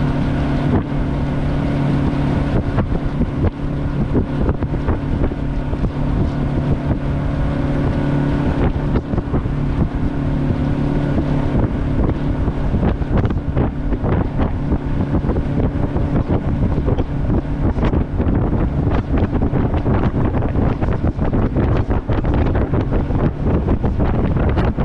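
Outboard jet boat's engine running steadily under way, a steady drone with wind buffeting the microphone. The gusts grow stronger in the second half and partly cover the engine.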